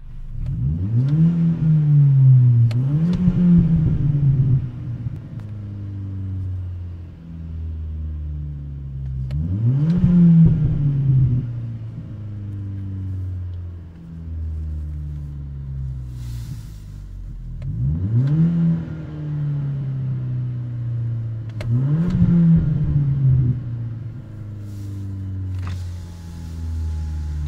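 VW-group car engine idling and being revved several times; each time the revs climb quickly to about the same point, then fall straight back to idle. This is the engine refusing to rev past a set rpm, a fault the owner traced to a failing G28 crankshaft position sensor (code P0321).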